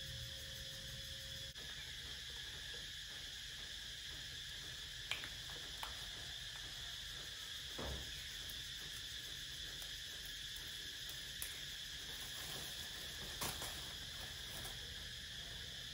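Steady, continuous high-pitched chirring of insects, like crickets, with a few brief clicks and a soft thump scattered through it.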